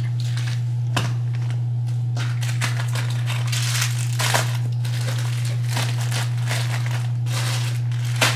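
Plastic bag crinkling in short bursts, with small handling clicks and knocks, as food and a drink bottle are packed into a bag. Under it runs a steady low hum.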